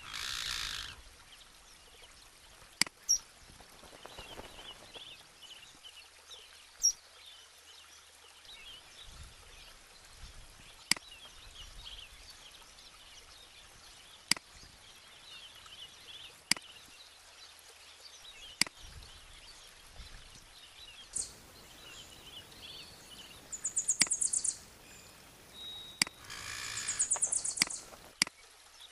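Birds chirping over a faint steady outdoor hiss, with two loud, rapid high trills near the end. Several sharp, short clicks are scattered throughout.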